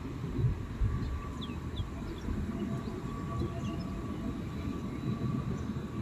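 Electric tram passing: a steady low rumble of wheels on rails with a faint, even motor whine.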